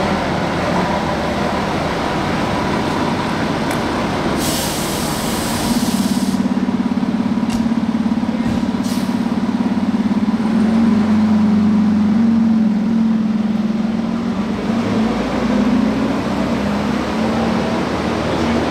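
A fire engine's diesel engine running as the engine pulls out of its firehouse and drives off. About four and a half seconds in, air brakes release with a short hiss. From about six seconds in, a strong low, steady engine note takes over as it gets under way.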